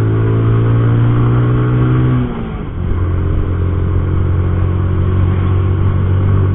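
Motorcycle engine running under way, its note dropping sharply about two seconds in, then holding steady at the lower pitch.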